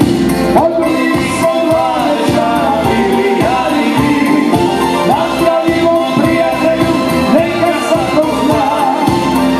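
A man singing live into a microphone over amplified backing music with a steady beat.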